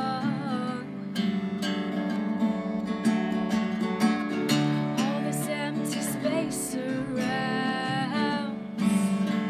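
A woman singing to her own strummed Tanglewood acoustic guitar, sung phrases with a slight waver in the pitch at the start and again about three quarters through, over steady strummed chords.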